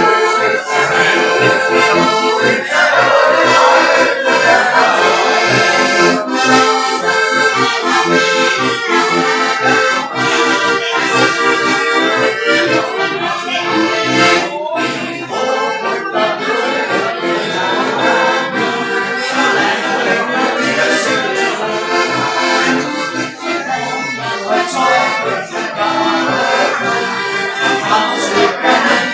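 Hohner piano accordion playing a traditional folk tune, without a break.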